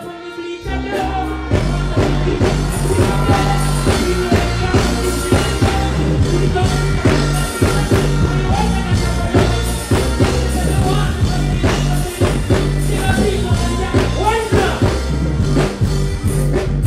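Reggae rhythm track playing loud over a concert sound system, with heavy bass, a steady beat and a voice singing in it. The music drops out briefly and comes back in about half a second in.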